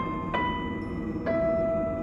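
Background music: struck, bell-like notes that ring and fade, three in a row, the last held long from about a second in.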